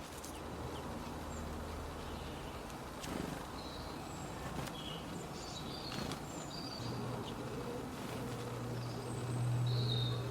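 Small birds giving short, scattered high chirps, with a few sharp clicks and a low steady hum underneath that grows louder near the end.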